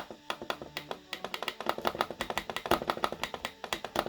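Buttons of a vintage Manhattan Amiga/Atari ST mouse being clicked over and over, in quick, uneven runs of sharp clicks, several a second. The crisp clicks show the repaired mouse's buttons work.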